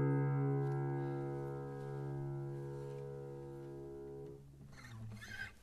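Acoustic guitar's final strummed chord ringing out and slowly fading, then stopping about four and a half seconds in. A brief faint rustle follows near the end.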